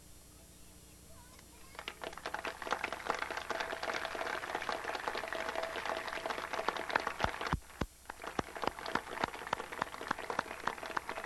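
A large crowd applauding, starting about two seconds in and breaking off briefly near the eighth second before going on.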